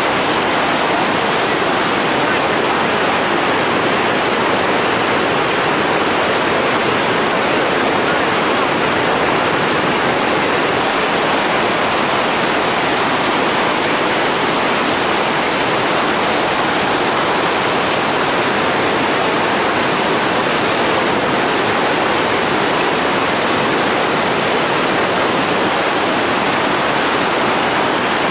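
Loud, steady rushing of whitewater rapids, river water pouring over and around boulders.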